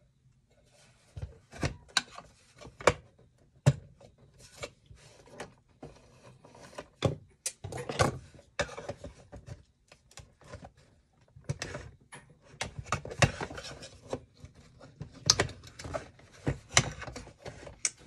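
Screwdriver clicking, knocking and scraping against the plastic case and metal parts of a vintage ITT rotary telephone as it is taken apart: irregular sharp clicks with rubbing in between.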